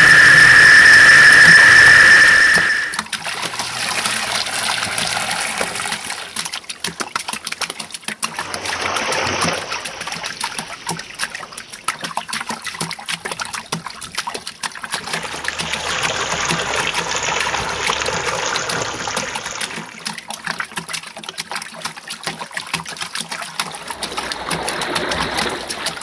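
A loud, steady high-pitched tone that cuts off about three seconds in. Then water trickling: a soft, crackly running-water noise that swells and fades several times.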